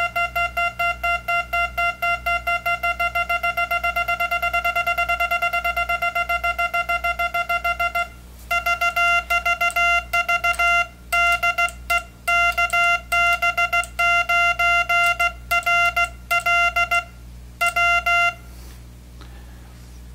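An EICO 717 tube electronic keyer's built-in monitor speaker sounds a single buzzy tone keyed very fast. First comes an unbroken string of rapid dots for about eight seconds. After a short break come quick groups of dots and dashes, stopping briefly near the end.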